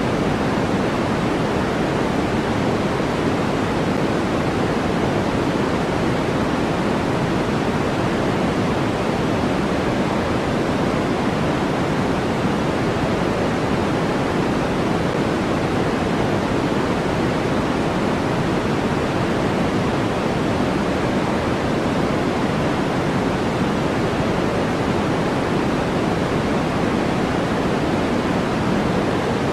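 Steady, electronically generated noise played as a white-noise sleep and focus track: an even, unchanging hiss whose energy is weighted toward the low end rather than spread flat.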